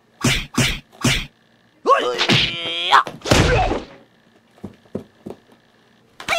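Dubbed kung fu sound effects: three quick whacking hits, then a drawn-out Bruce Lee-style martial-arts yell about two seconds in, followed by a whooshing rush and a few light thuds, and another hit and yell near the end.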